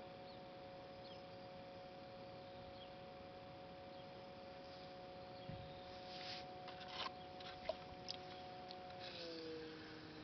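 Electric potter's wheel motor whining faintly in a steady pair of tones that step down in pitch near the end as the wheel slows. Light rubbing and a few small clicks from hands working the wet clay pot come in the second half.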